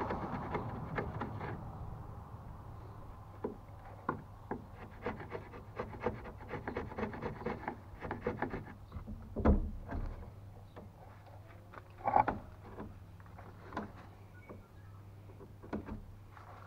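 Wood chisel pushed by hand, paring a notch in a wooden stringer: a continuous shaving stroke at the start gives way to a run of short, irregular scraping cuts and small clicks as the blade takes off wood. A louder knock comes a little past halfway, and another a few seconds later.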